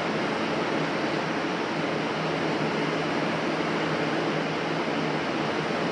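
A fan running steadily: an even rushing noise with a constant low hum.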